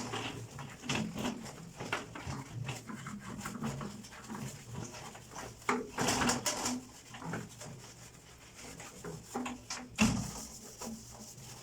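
A soapy sponge scrubbing the outside of a canister vacuum cleaner's drum: irregular rubbing strokes and small knocks of the drum being handled, with a sharper knock about ten seconds in.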